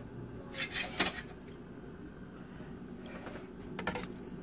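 A few light clicks and knocks of handling at an electric stove with a stainless steel cooking pot on it: a quick cluster about a second in and two more sharp clicks near the end, over a faint steady hum.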